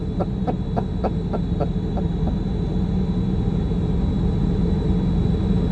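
A vehicle's engine running with a steady low rumble, with a quick regular ticking, about four ticks a second, over the first couple of seconds.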